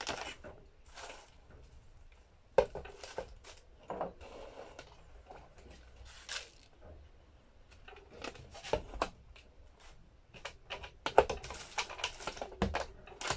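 Plastic moisture-absorber tubs and lids handled on a tabletop: a string of sharp plastic clicks and knocks, with the rustle of a plastic refill bag and pellets pouring into a tub near the start.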